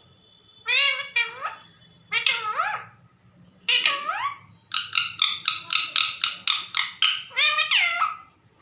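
Pet parrot calling: several separate drawn-out calls that glide up and down in pitch, much like a cat's meow. About halfway through comes a quick run of about a dozen short notes, roughly five a second.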